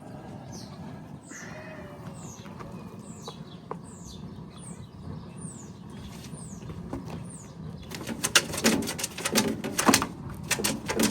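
A meat chicken flapping its wings hard while it is being caught: a rapid, loud flurry of wingbeats over the last three seconds or so. Before that, thin high chirps fall in pitch about twice a second.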